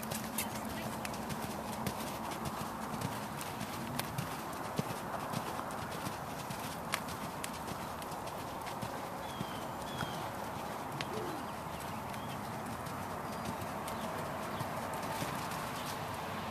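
Hoofbeats of a palomino horse cantering under a rider on soft dirt arena footing, an uneven run of dull thuds and clicks.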